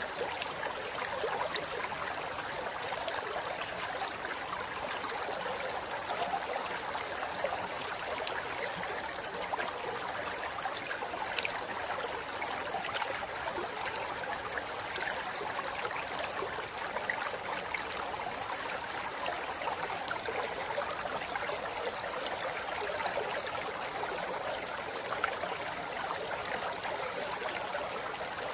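River water flowing and splashing over rocks in a steady rush, with small splashes and gurgles flickering through it.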